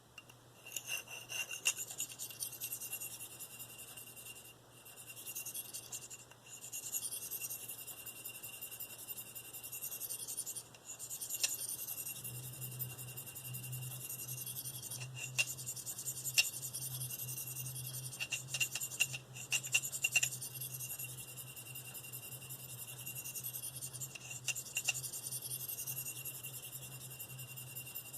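Knife edge of V-Toku2 steel being drawn across a fine Spyderco ceramic stone (302f, lapped side) in light freehand strokes: a high, dry scraping hiss that comes and goes with each pass, with brief pauses and small clicks between strokes.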